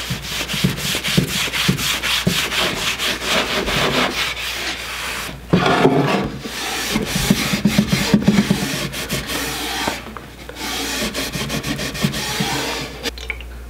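A cloth rag rubbed briskly back and forth over a wooden cutting board in quick, even strokes, working a warm beeswax and mineral oil finish into the wood. About five and a half seconds in there is a louder knock as the board is stood on its edge, and then the rubbing goes on along the board's edge.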